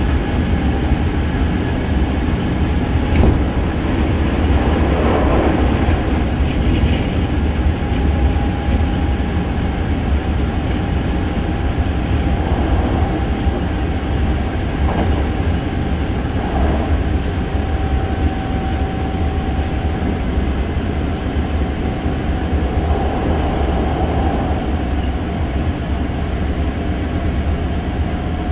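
Hankyu 6300 series electric train running at speed, heard from inside the passenger car: a steady heavy rumble with a thin whine that slowly drops in pitch. There is an occasional rail-joint click, the sharpest about three seconds in.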